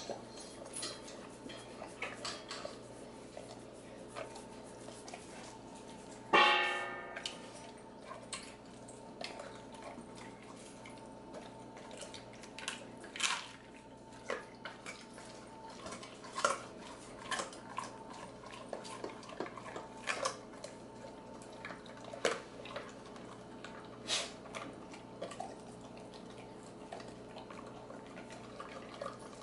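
XL American Bully eating a raw meal from a stainless steel bowl in a wire stand: wet licking, chewing and smacking, with scattered clicks of teeth and bone against the metal. About six seconds in, the bowl is knocked and rings loudly, fading over about a second, over a faint steady hum.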